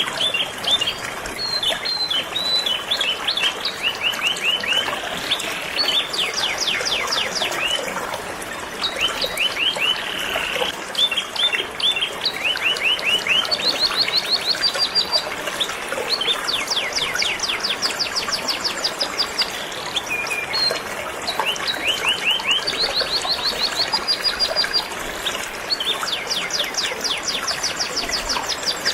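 Canary singing in long, rapid trills of repeated, sharply falling high notes, changing from one trill to the next, over the steady rush of flowing river water.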